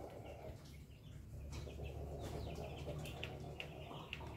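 Chickens clucking softly: a scatter of short, high calls, most of them in the second half, over a steady low hum.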